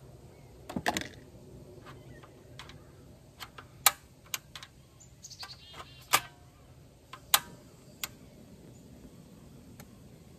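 Scattered sharp clicks and clinks from a portable butane camp stove and cookware being handled, about a dozen knocks spread out, a couple of them ringing briefly like metal.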